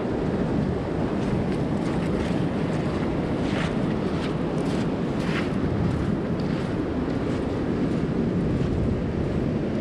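Wind buffeting the microphone with a steady low rumble, over surf breaking and foamy wash running up the sand, with a few brief hisses of surf.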